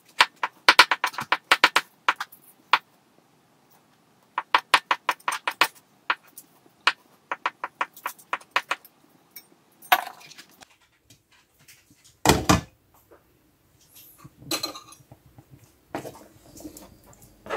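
Knife chopping hard-boiled eggs on a plastic cutting board, in several quick runs of sharp chops. Later comes one louder knock, then scraping as the chopped egg is pushed off the board into the soup pot.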